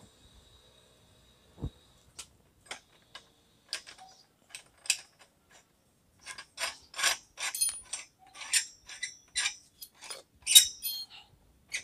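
Galvanized iron pipe union being screwed together by hand: short metallic clicks and scrapes of the threaded fitting turning. They are sparse at first and come thick and fast over the second half.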